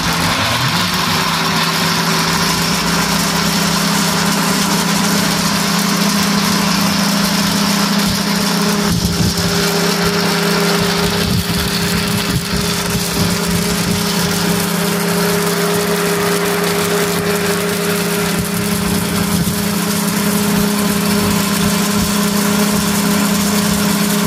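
Two-jar commercial double blender with a heavy-duty copper-wound motor running, both jars blending falsa berries into juice: a loud, steady motor hum with a whirring wash over it.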